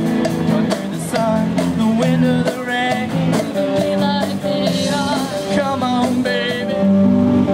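Live rock band playing: a girl's lead vocal over drum kit, electric guitar and a cowbell struck with a stick, with a steady beat.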